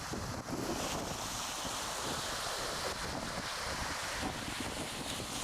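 Ocean waves washing in a steady rush, with wind gusting on the microphone.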